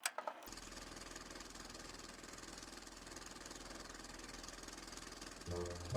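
A few short clicks right at the start, then a faint, steady mechanical hum with a fast, even rattle, like a running motor. Music comes in near the end.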